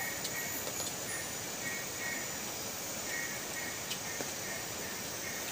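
Insects: a steady high buzz with short chirps repeating over it, and a faint click or two.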